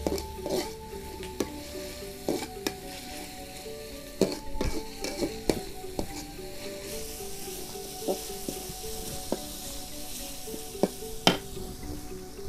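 Metal spatula stirring and scraping in a metal wok while a chilli-tomato paste sizzles and fries. Sharp clinks of the spatula on the pan are scattered throughout, the loudest one near the end.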